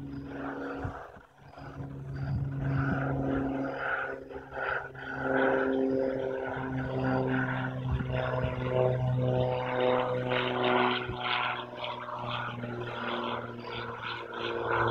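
An engine running steadily in the background, a droning hum whose pitch shifts slightly now and then.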